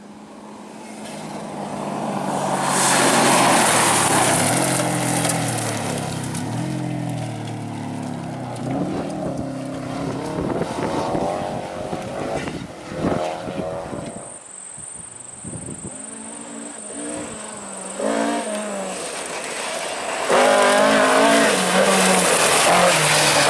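Rally car engine growing louder as the car approaches, revving hard and shifting up through the gears, then easing off. Near the end it revs hard again through several quick gear changes.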